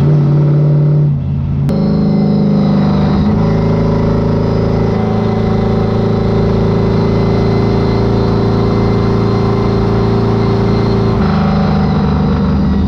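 1968 Dodge Charger stock car's engine running loud while driving. It briefly drops off about a second in, then pulls steadily, and its note changes again near the end.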